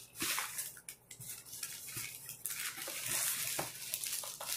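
Packaging being handled while a parcel is opened: a run of rustling, scraping and crinkling with small clicks and taps.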